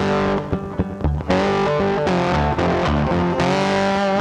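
Background music led by a guitar, with sustained notes; it drops back briefly about half a second in and returns about a second later.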